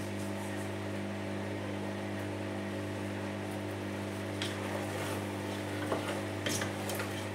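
Induction hob humming steadily under a stew pot. In the second half, a few light knocks of a wooden spoon stirring in the stainless-steel pot.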